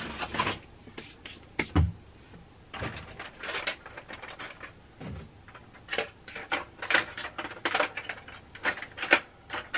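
Toy cars being rummaged through in a box: irregular clatter and knocks of hard toys against each other, with a heavier thump about two seconds in and a busier run of clicks over the last few seconds.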